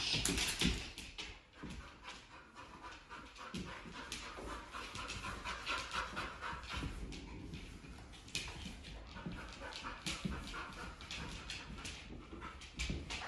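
Rhodesian ridgeback/pit bull mix panting in quick, steady breaths as he walks on the leash, in the over-excited state he is being trained out of, with light clicks from his claws on the hard floor.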